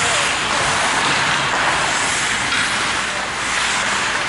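Steady ice-rink ambience during hockey play: a continuous, even hiss-like noise with no single event standing out.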